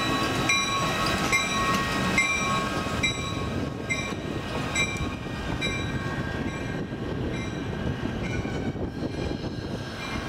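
Union Pacific diesel locomotive moving slowly along the track, its engine running, with a short ringing tone repeating a little faster than once a second. Both grow fainter as the locomotive draws away.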